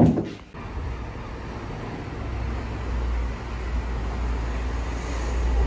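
Outdoor street ambience: a steady low rumble that grows stronger about two seconds in.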